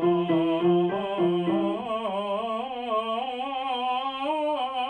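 A man's trained singing voice runs a quick stepwise vocal warm-up pattern on "va", a choral triplet exercise, with piano accompaniment. About two seconds in, it settles into one long held note with vibrato.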